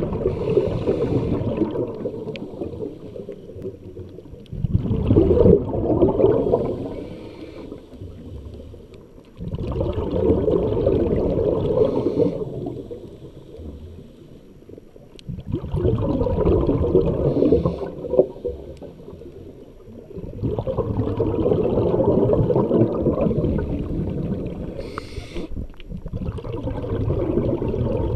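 Muffled underwater rushing and gurgling of water around a diving camera. It swells for two or three seconds and then fades, over and over, about every five seconds.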